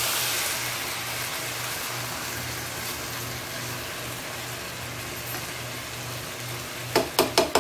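Rice and potatoes sizzling softly in a non-stick wok as the last of the cooking water dries off, stirred with a steel spatula, over a low pulsing hum. Near the end the spatula knocks quickly on the pan about four times.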